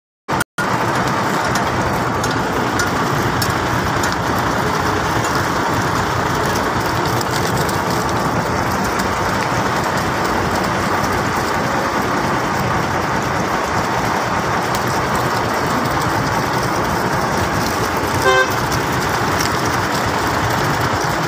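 Steady road-traffic noise, with one short vehicle horn toot about eighteen seconds in.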